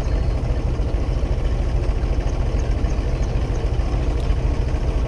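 Diesel tractor engine running steadily at a constant speed, driving a water pump.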